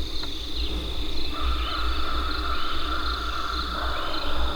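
Early-morning woods: a steady high-pitched insect drone, joined about a second in by a second, lower steady chorus of calling insects or frogs.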